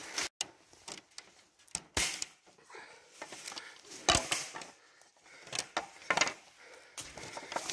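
Ratchet tie-down strap being released and its metal S-hook unhooked from a load of bamboo: a series of separate clicks, clinks and knocks.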